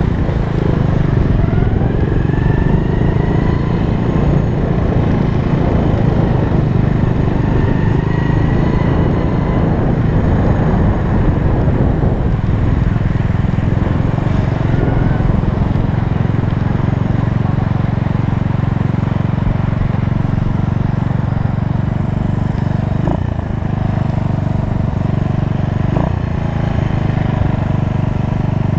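1968 Honda S90's small single-cylinder four-stroke engine running steadily while the motorcycle is ridden at low speed, its pitch rising a couple of times in the first ten seconds as the throttle opens.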